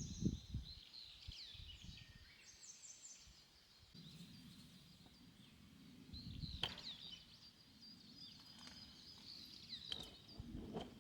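Faint chirping and short trills of small songbirds, with a couple of sharp clicks and a low rumble beneath.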